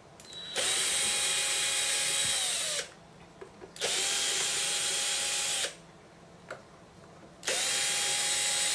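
Electric screwdriver running in three bursts of about two seconds each, backing out the screws that hold an espresso machine's main board; each burst spins up to a steady whine and winds down as it stops.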